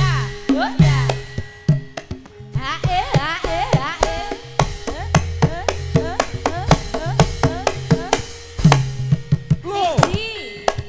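Javanese gamelan music for tayub: a kendang hand drum plays quick strokes, some bending in pitch, over ringing gong and metallophone tones.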